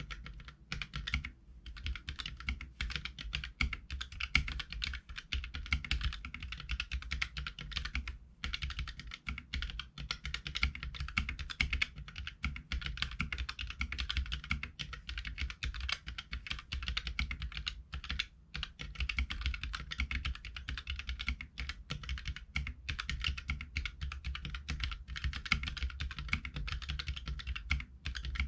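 Fast, continuous typing on a Keychron K3 mechanical keyboard with Gateron red linear switches: a rapid, loud clatter of key presses, broken by a few short pauses.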